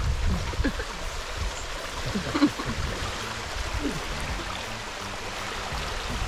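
Shallow river running fast over rocks: a steady rush of flowing water, with one short sharp tap about two and a half seconds in.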